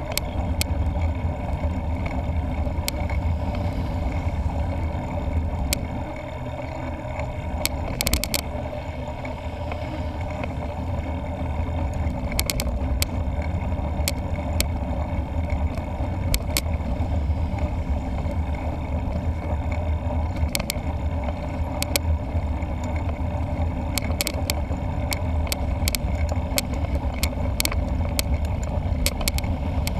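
Mountain bike riding on a paved road, heard through a bike-mounted camera: a steady low rumble of wind on the microphone and tyres on the road, with scattered sharp clicks and rattles.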